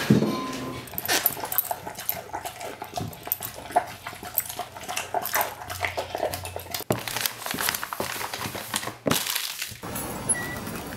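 Dog feeding from a ceramic bowl: a quick, irregular run of wet clicks and smacks that stops about ten seconds in.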